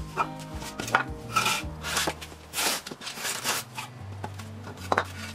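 Wooden blocks knocking against one another and the concrete floor as they are set down and stacked, about half a dozen sharp knocks at uneven intervals, over faint background music.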